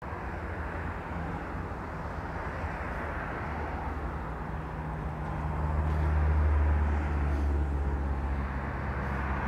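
Roadside traffic noise: a steady low rumble that swells louder about six seconds in, then eases back.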